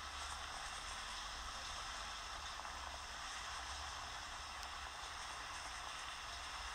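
Steady hiss of moving water in a large fountain pool, with wind rumbling on the microphone.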